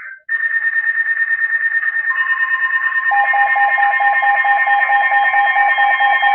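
Electronic weather-alert tones sounding together: a rapidly pulsing high beep, joined about two seconds in by a steady lower tone and about a second later by a still lower, fast-pulsing warbling tone. They are the alert signals that announce a new severe thunderstorm warning on NOAA Weather Radio and the Emergency Alert System.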